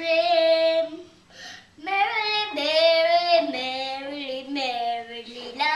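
A young boy singing: one held note, a short pause, then a longer phrase of several notes that steps down in pitch.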